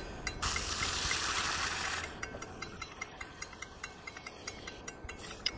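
Dry rice poured from a cup into a cooking pot: a hissing rush of grains for about a second and a half, then a light, quick ticking of the last grains.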